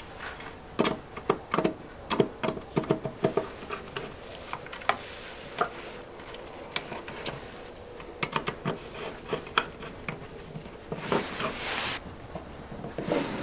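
Irregular small plastic clicks as the segment tabs on a mechanical 24-hour time switch's dial are pressed down to set its on-period, thickest in the first few seconds, with a brief rustle of handling about eleven seconds in.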